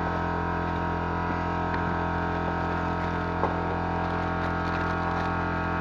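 Steady electrical hum with many level tones, the loudest thing throughout, with faint rustling and small clicks of a new air filter being taken out of its cardboard box and plastic wrap.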